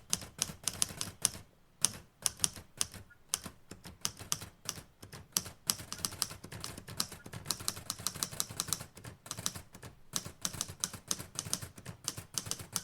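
Typewriter keys clacking in quick, irregular runs of keystrokes with a couple of short pauses, as an order is typed up.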